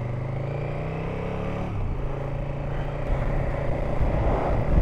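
KTM adventure motorcycle engine pulling away under acceleration, its pitch rising and then dropping with an upshift a little under two seconds in. Road and wind noise build as speed picks up.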